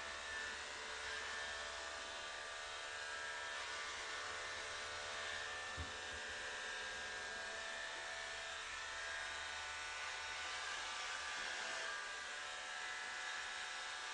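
Electric hair clippers running steadily, with a brief soft knock about six seconds in.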